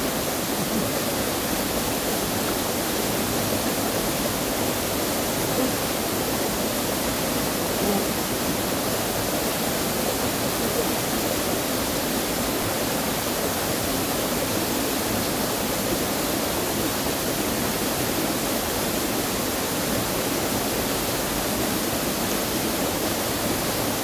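Small mountain waterfall pouring into a rocky pool, with the stream running over the stones: a steady rush of falling water.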